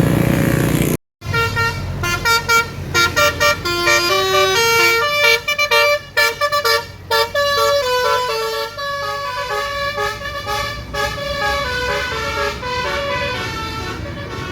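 Tour bus's basuri musical air horn playing a 'telolet' melody, first in quick short notes and then in longer held notes. About a second of loud vehicle noise breaks off suddenly before the horn starts.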